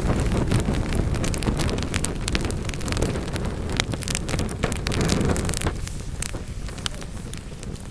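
Wood fire burning in a fireplace: many sharp crackles and pops of the burning logs over a low, steady rumble of the flames. The rumble eases off about six seconds in while the crackling carries on.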